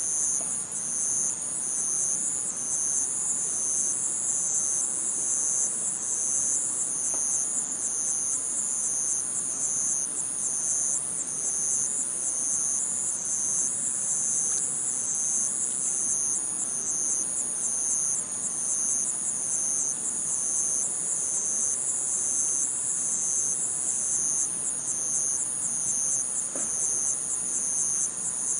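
Insects chirping in a steady, high-pitched pulsing chorus, with a few faint knocks now and then.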